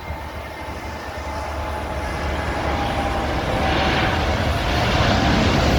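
Airbus A321neo's jet engines: a steady whine over a rushing noise, growing steadily louder.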